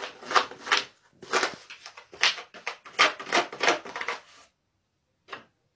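A series of short scratching strokes, about two a second for some four seconds, then one more shortly before the end.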